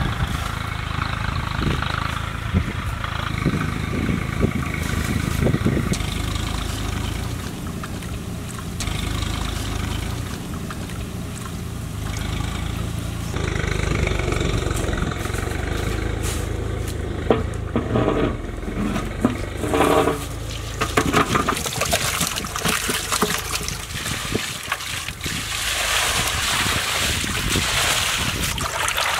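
Water poured from metal pots onto raw chicken pieces in a large steel basin, a strong splashing hiss near the end. Earlier, onions frying in oil in a wok over a wood fire, with a few knocks and clanks in the middle.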